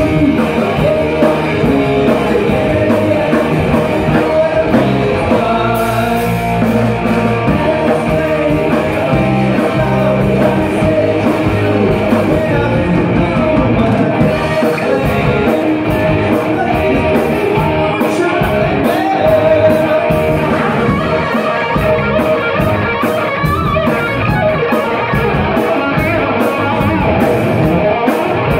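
A live rock band playing with a lead singer, electric guitar through a Randall amplifier, bass guitar and a drum kit, loud and continuous.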